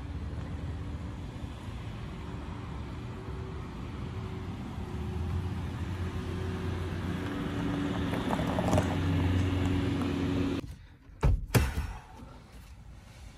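An SUV driving up a road toward the listener, its engine and tyres rumbling steadily and slowly growing louder. The engine hum is held steady over the last few seconds. The sound cuts off abruptly about eleven seconds in, followed by two sharp thumps.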